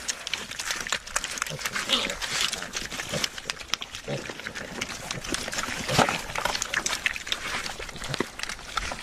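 Pigs eating at a trough: constant wet smacking and chomping, with short grunts now and then and a louder grunt about six seconds in.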